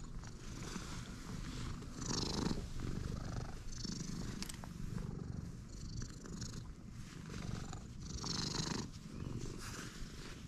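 A stray domestic cat purring steadily, close up, as it is stroked, with brief rustling sounds every second or two.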